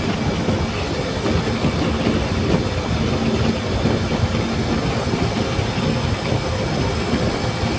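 Steady rumble of a motorcycle cruising on a highway: wind buffeting the microphone over the engine's drone and tyre noise.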